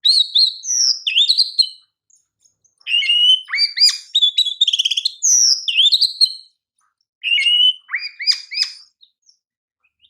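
Oriental magpie-robin (kacer) singing loudly: varied whistled phrases, sweeping notes and chatter in three bursts with short pauses, including a quick rattling trill midway.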